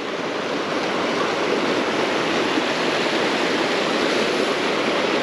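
Creek water rushing steadily: a loud, even wash with no breaks.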